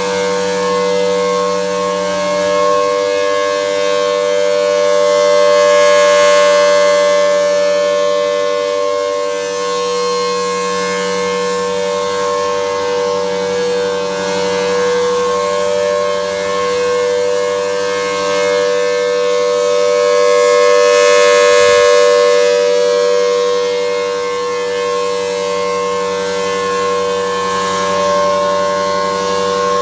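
Federal Signal Thunderbolt 1000T outdoor tornado siren sounding a steady tone that holds one pitch. Its loudness swells and fades about every 15 seconds as the rotating horn sweeps toward and away.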